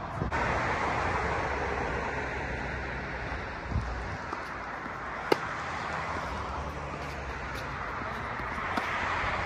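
Steady wind noise on the microphone, with one sharp crack of a tennis ball struck by a racket about five seconds in and fainter ball strikes near the end.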